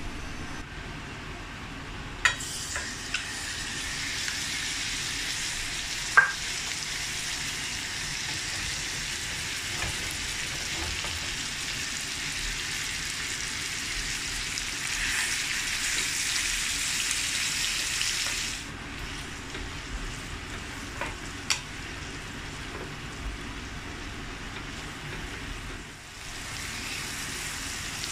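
Minced beef sizzling in hot oil in a frying pan: the sizzle starts about two seconds in and eases to a quieter level about two-thirds of the way through. A few sharp knocks, the loudest about six seconds in, and a wooden spatula stirring the meat near the end.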